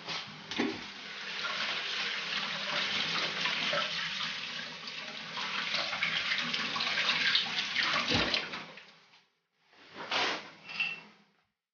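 Batter-coated mozzarella sandwich deep-frying in hot oil in a wok: a steady sizzle with many small crackles. It cuts off about nine seconds in, then comes back briefly for about a second.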